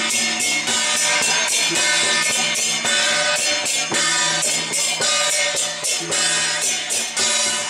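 Music with a steady, dense percussion beat of cymbal- or tambourine-like strikes over sustained pitched tones.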